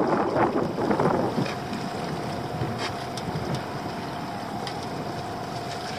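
Wind buffeting the microphone over the sea around a small open boat, loud at first and easing about a second and a half in. After that a faint steady hum and a few light clicks come through.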